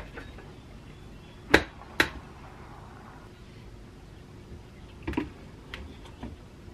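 Metal parts of an old electric motor clacking as they are handled: two sharp knocks about a second and a half and two seconds in, then a few fainter clicks near the end.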